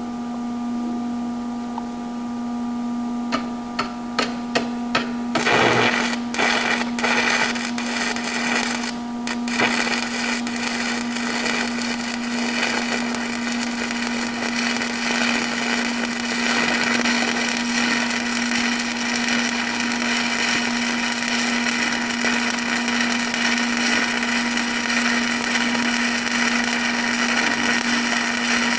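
Stick-welding arc from a 1/8-inch 7018 electrode run at about 105 amps DC electrode-positive on an Everlast MTS 210S welder, laying a fillet weld on steel. After a few sharp ticks the arc catches about five seconds in, sputters and breaks off a few times, then settles into a steady crackle.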